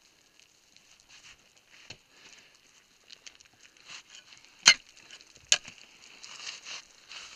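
Boots and gloves scuffing and scraping on rock and loose gravel during a downclimb, with irregular small crunches and clicks. Two sharp knocks a little under a second apart come near the middle, the loudest sounds.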